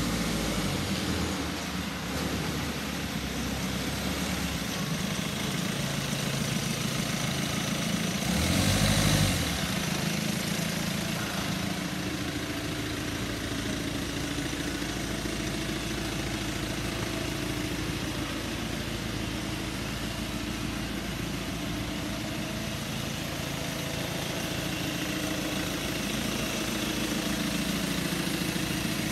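Citroën Berlingo van's engine idling steadily, with a brief louder swell about nine seconds in.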